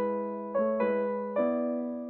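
Background music of piano chords, each chord struck and left to ring and fade before the next, about three new chords in two seconds.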